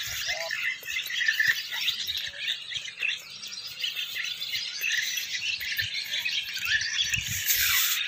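Swallows twittering: a dense, continuous chatter of high chirps from many birds at once. A few low bumps come near the end.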